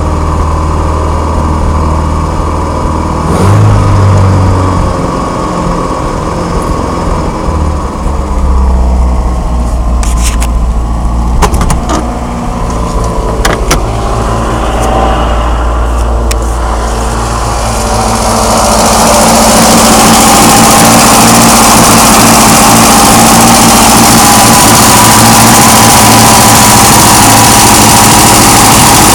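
1987 Mitsubishi Starion's turbocharged four-cylinder engine idling roughly, with a few sharp clicks. About two-thirds of the way in, a loud steady hiss rises and covers the engine.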